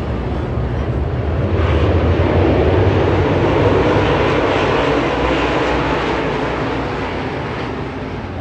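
Dirt late model race cars' engines running hard on the track, the sound swelling to a peak about three to four seconds in and then fading.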